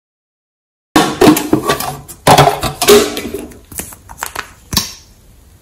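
Close-up sharp clicks and crackling from a plastic lipstick tube being handled. They start suddenly about a second in and die away near the end.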